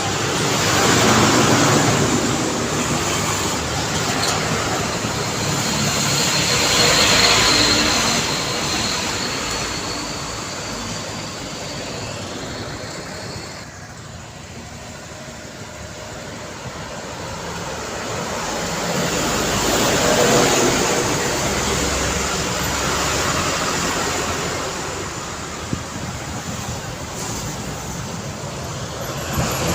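Road traffic going by on a city street, with vehicles passing close one after another: the noise swells and fades several times and eases off for a moment near the middle. A high steady whine runs for several seconds in the first half.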